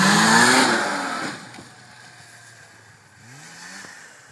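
Snowmobile engine running loud at high revs, its pitch wavering, then dropping away sharply about a second and a half in; fainter revs rise and fall after that.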